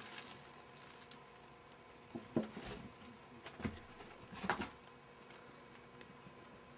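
Young rabbits moving in and around a cardboard box on carpet: three short scuffling noises, about two and a half, three and a half and four and a half seconds in, over a faint steady hum.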